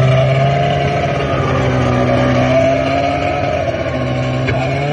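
Polaris snowmobile engine running steadily as the sled drives across the snow, its pitch starting to rise at the very end as the throttle opens.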